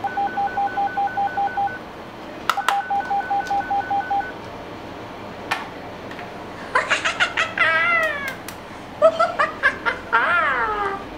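Toy walkie-talkie beeping: two runs of rapid, evenly spaced electronic beeps, each starting with a click. These are followed by electronic toy sound effects, clicks and falling warbling tones, in two clusters.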